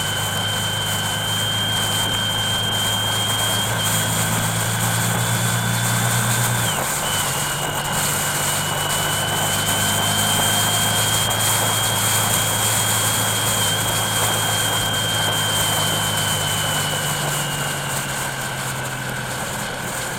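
Vehicle engine running steadily on the move, with an even road hiss and a thin high whine. The engine note drops suddenly about seven seconds in and then holds steady again.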